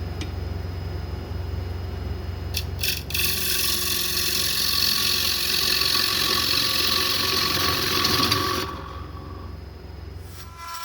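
Wood lathe running with a steady hum. About three seconds in, a carbide turning tool starts cutting into the spinning yellow cedar and walnut bowl blank, a loud scraping cut that lasts about five seconds and then stops.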